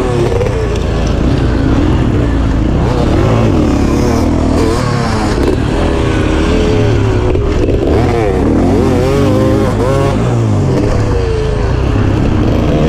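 Dirt bike engine being ridden hard, the throttle opening and closing so its pitch rises and falls again and again.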